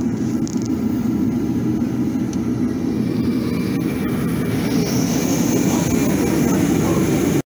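Forced-air torpedo garage heater running: a steady, loud rushing noise with no distinct pitch.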